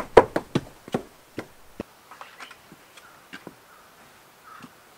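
Wooden one-tooth geta clacking on hard ground in quick steps for about the first two seconds. Then come fainter scattered taps and a light rustle.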